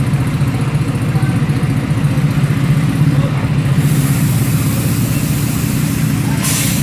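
Diesel engine of a high-deck tour coach running steadily at low speed as it moves slowly past close by, with a short burst of hiss near the end.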